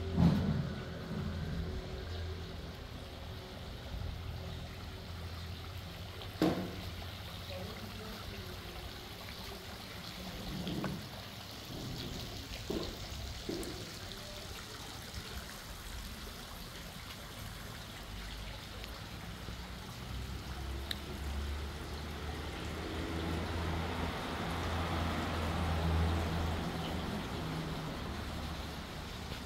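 Water trickling and running steadily, over a low hum, with a few soft knocks near the start and again a few seconds later.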